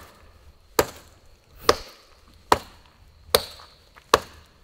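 Hatchet chopping into a wooden log: five sharp strikes at an even pace, a little under a second apart.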